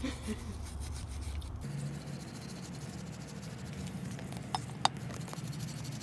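Wire brush scrubbing rust off a brake caliper bracket in quick rasping strokes, cleaning the seats where the pad shims sit. Two sharp clinks come near the end.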